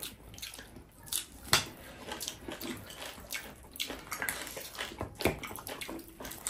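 Close-miked wet chewing and mouth smacking of tough buffalo meat: an irregular run of short clicks and squelches, with a couple of louder smacks about a second and a half in and near five seconds.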